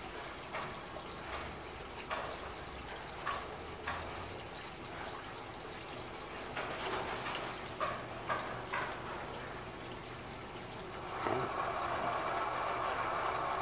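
Wastewater gurgling and trickling into a sewage ejector basin. About eleven seconds in, a Little Giant 9SN-CIA-RF sewage ejector pump kicks on and runs with a steady hum and rush of water as it starts emptying the basin.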